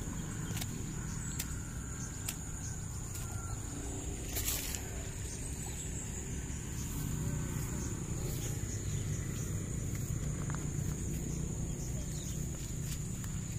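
Outdoor ambience by a stream: a steady low rumble and a constant high-pitched hum, with scattered light clicks and one louder rustle about four and a half seconds in as the net-carrier moves through grass.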